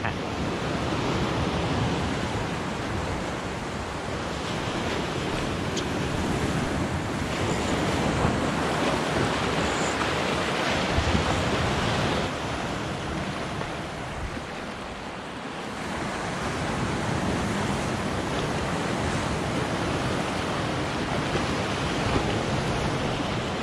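Ocean surf washing and breaking against a lava-rock shore, a steady rushing that eases off briefly mid-way and swells again, with wind on the microphone.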